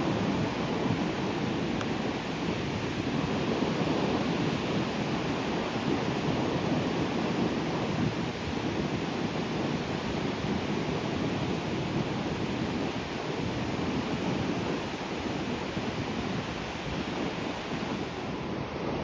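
Sea waves breaking and washing on the shore in a steady surf, rising and easing a little in loudness, with some wind noise on the microphone.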